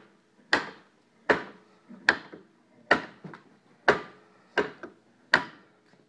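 Hook blade machine stroked across a scraper's hook blade about seven times at an even pace, each stroke a short sharp scrape that fades quickly. The strokes bend the blade's edge over into a hook, a light finishing pass at the machine's top setting.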